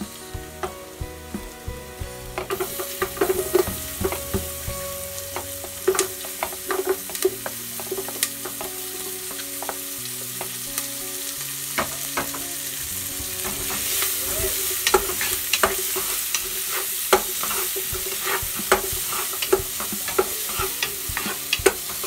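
Garlic and diced onion sizzling as they sauté in butter in a pot, with a wooden spatula clicking and scraping against the pot as it is stirred. The sizzle picks up a couple of seconds in.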